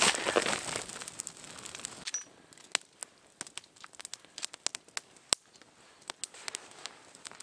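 Small campfire of birch bark and twigs crackling: dense crackling for about the first two seconds, then quieter with scattered sharp pops.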